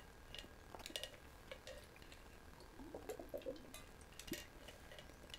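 Faint scattered clicks and light clinks of a drink bottle being handled and its cap worked open.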